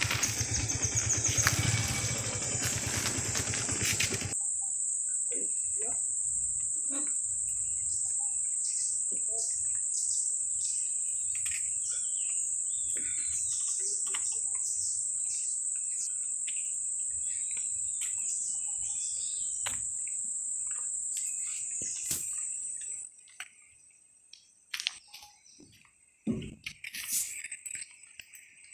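Loud rushing noise for the first few seconds, then a steady, high-pitched insect drone that cuts out near the end, leaving faint scattered chirps.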